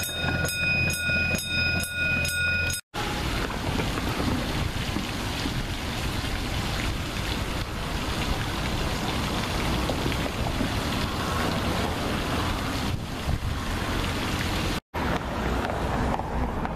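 A miniature park train running past, with steady high-pitched ringing tones and about two ticks a second from its wheels on the rails. It cuts off suddenly about three seconds in, giving way to a steady rush of spraying water from a fountain statue's jets. A quieter hiss follows near the end.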